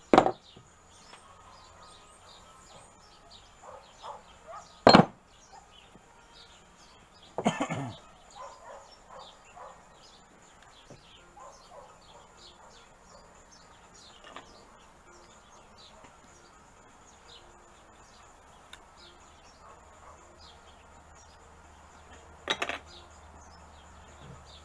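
A few sharp metallic clanks and clatters, with quieter knocks between, as metalworking hammers, anvils and copper sheet are handled and set down on a bench. Faint bird chirping carries on underneath.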